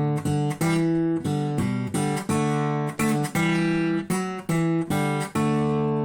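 Acoustic guitar strumming chords with no singing, about two strokes a second; a little past five seconds in, a final chord is struck and left to ring.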